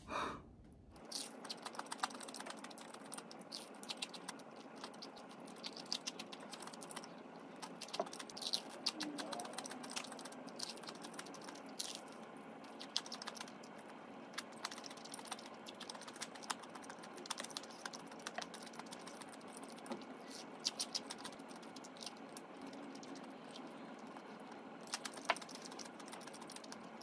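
Crispy fried chicken being bitten and chewed: an irregular run of crackling crunches, with a few louder clusters of crunching.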